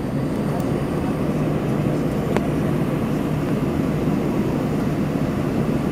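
Airbus A321 engines running at low power as the airliner taxis, heard as a steady hum and rumble inside the passenger cabin. A single faint click comes about two and a half seconds in.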